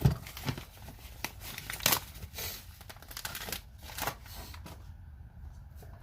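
Packaging being handled and opened: irregular rustles and crinkles, with a knock right at the start and a louder rustle about two seconds in.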